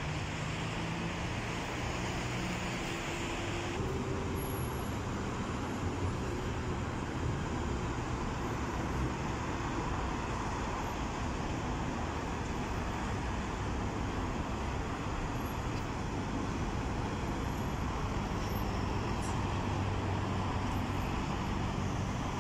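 Steady road traffic noise: a continuous wash of passing vehicles, with a low engine hum more noticeable in the first few seconds.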